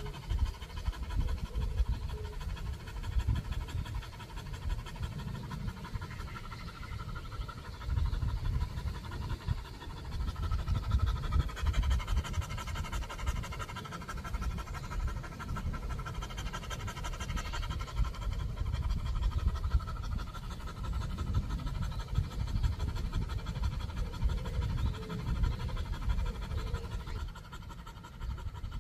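A dog panting steadily with its tongue hanging out, over an uneven, gusty low rumbling.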